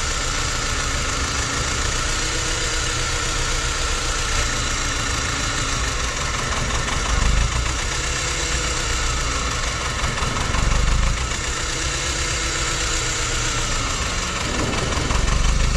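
Jetour X70's engine idling with a misfire on cylinder 2, with three brief low surges in loudness. The misfire was later traced to low compression on that cylinder.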